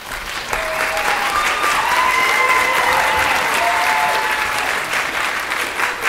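Theatre audience applauding. The clapping starts right away, swells within the first second and then keeps on steadily.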